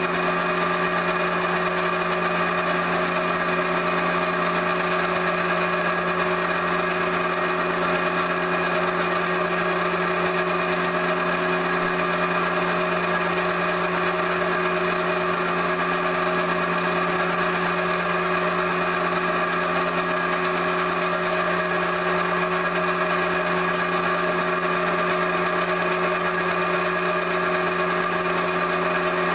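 Pug mill's electric motor running steadily, a constant mechanical hum with several fixed tones, as it extrudes a log of clay.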